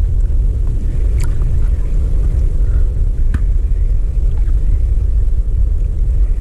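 Wind and choppy water buffeting a small camera's microphone: a steady low rumble, with a few light clicks about one and three seconds in.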